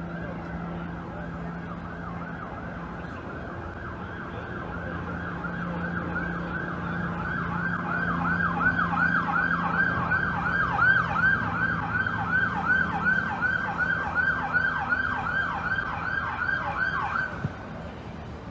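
Police car siren in a fast yelp, about three pitch sweeps a second. It grows louder midway and cuts off suddenly near the end.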